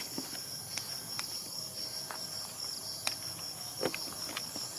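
Crickets chirping in a steady, fast pulsing trill, with a few faint clicks and a knock a little before the end.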